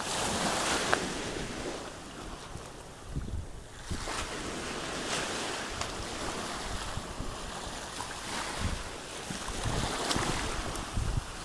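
Small waves washing in over the shallows and draining back, swelling and easing every few seconds, with wind buffeting the microphone in low rumbling gusts.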